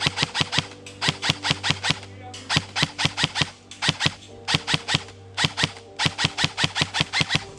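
Airsoft gun firing rapid automatic bursts of sharp clicking shots, about eight a second, six bursts with short pauses between them. A steady low hum runs underneath.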